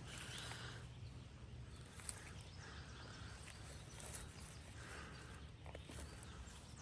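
Faint footsteps rustling through dry leaf litter on a forest floor, a few slow steps about two seconds apart, over a quiet outdoor background.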